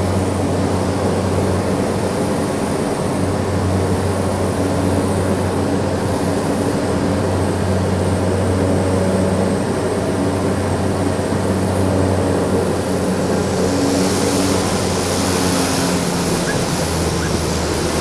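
The Cessna 406's twin Pratt & Whitney PT6A turboprop engines heard from inside the cockpit: a steady low drone with propeller hum at low approach power. About three-quarters of the way through, a hiss rises as the aircraft touches down and rolls along the runway.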